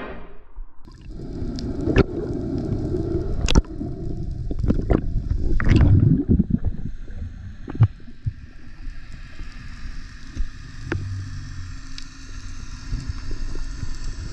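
Water moving and gurgling around an underwater camera during a freedive, with several sharp clicks and knocks scattered through it, the loudest stretch about halfway.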